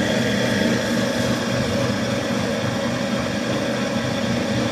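Electric band saw running steadily with its blade free, not cutting: a constant machine hum made of several steady tones.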